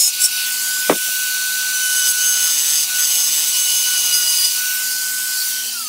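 Handheld high-speed rotary tool cutting through a plastic car bumper: a steady high motor whine over a rasping cutting hiss. Near the end the whine drops in pitch as the tool winds down.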